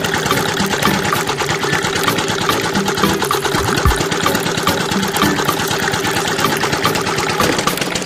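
Small motor driving a miniature roller-type sugarcane crusher, a steady, rapid mechanical clatter as the rollers crush the stalks, with a brief low thump about four seconds in.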